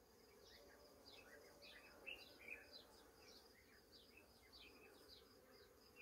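Near silence with a faint, steady hum of honeybees at their hives, and quick faint high chirps over it.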